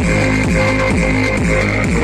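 Electronic dance music with a heavy, loud bass line, played through a JBU 8-inch bass tube with a built-in amplifier as a sound test.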